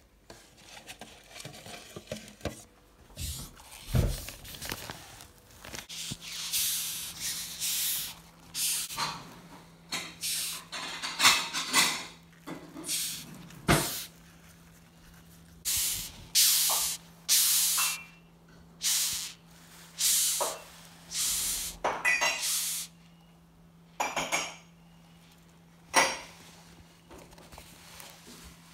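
Rhinoceros beetles hissing when disturbed: about a dozen short, raspy hisses, each about half a second, made by rubbing the abdomen against the wing covers. A few sharp taps fall between them.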